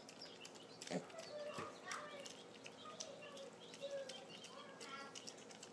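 Mini pigs crunching and chewing dry pellet feed from a bowl: a steady stream of quick irregular crunches and clicks.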